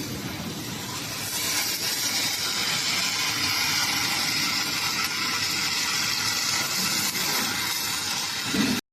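MMA (stick) welding arc crackling and hissing steadily. The sound grows stronger about a second and a half in and cuts off abruptly at the very end.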